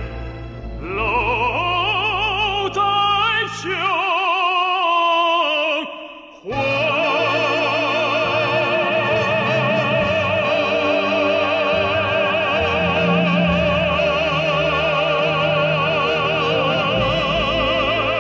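Male operatic baritone singing over low instrumental accompaniment: a few short phrases with vibrato, then, about six and a half seconds in, one long note held with wide vibrato as the song's closing note.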